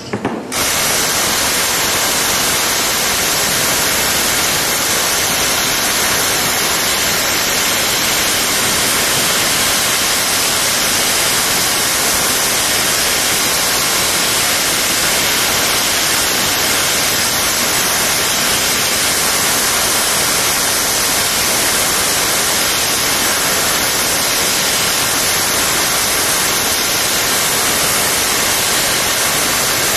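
Loud, steady static hiss spread evenly across all pitches, starting suddenly about half a second in and holding a flat level: recording noise rather than any sound from the shed.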